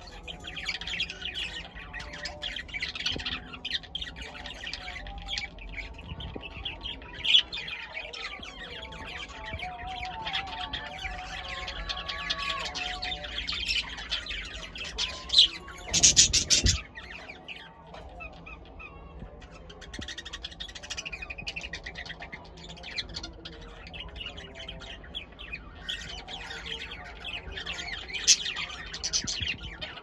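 Male budgerigar warbling: a continuous, fast chatter of chirps, clicks and short squawks, the courtship song of a budgie in breeding mood. About halfway through a brief, very loud noise cuts across it.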